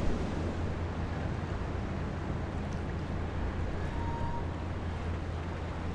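Steady low drone of a large vehicle carrier's engines as the ship passes, over a hiss of wind and moving water.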